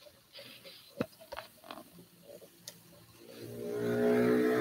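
A few light taps and clicks, then about three seconds in a man's long drawn-out voiced sound that swells up and holds a steady pitch.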